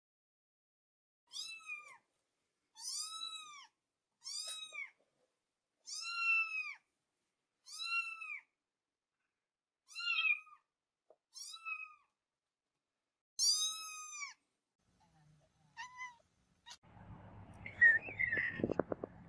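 A kitten mewing over and over, about ten short high-pitched mews a second or two apart, each rising then falling in pitch. Near the end a cat meows against background hiss and a few clicks.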